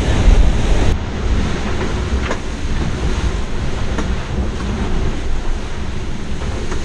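Steady rush and low rumble of water streaming past a MOD70 racing trimaran's hull at speed, heard inside the cabin, with a few faint knocks.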